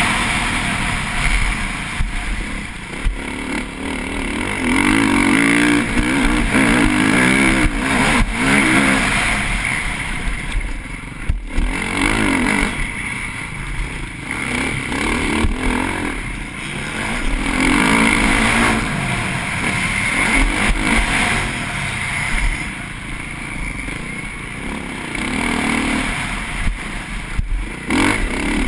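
TM MX450Fi single-cylinder four-stroke motocross engine revving hard and backing off again and again as it is ridden at race pace, heard from the bike itself. The engine note climbs and drops every few seconds through the corners and straights.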